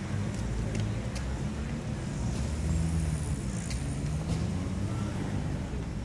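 Steady low rumble with a few faint clicks scattered through it.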